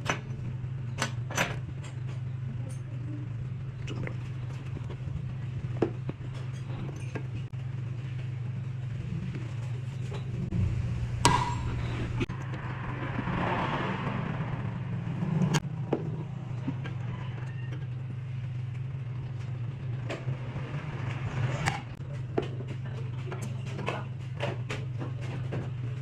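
Scattered light metallic clicks and taps as engine valves are slid one by one into their guides in a cylinder head, over a steady low hum.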